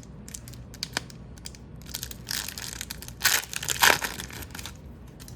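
The wrapper of a hockey card pack crinkling and crackling as it is handled and torn open, with scattered small clicks and a louder run of crinkling from about two to four seconds in.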